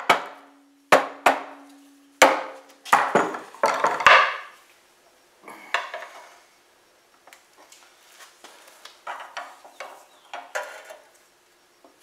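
A hammer taps the oil pan of a Tecumseh lawn-tractor engine, about eight sharp knocks in the first four seconds, to break the pan's gasket seal from the crankcase. After that come quieter scrapes and light metal clinks as a pry tool works at the seam.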